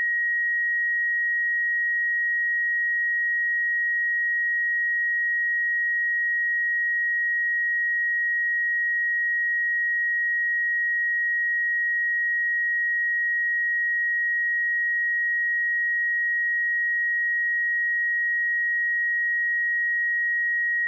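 A pure 1893 Hz sine-wave test tone, held steady at one pitch and level.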